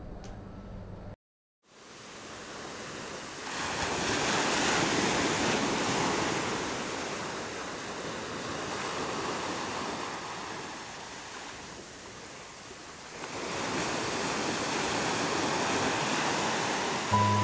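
Ocean surf washing up a fine pebble beach and drawing back, a steady rush that swells twice: at about four to seven seconds, and again from about thirteen seconds on.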